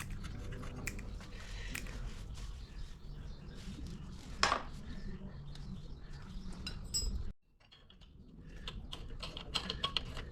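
Metal tools and parts clinking and knocking by hand, with one sharper knock about four and a half seconds in. The sound cuts off abruptly a little past seven seconds, then the clinking builds back up.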